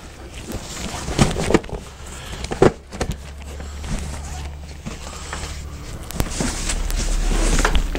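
Rustling, scraping and light knocks as a stiff side panel is worked into a fabric soft-sided carrying bag, with cloth rubbing on cloth. The rubbing swells near the end.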